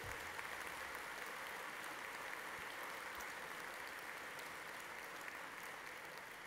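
Large conference-hall audience applauding steadily, fading slightly near the end.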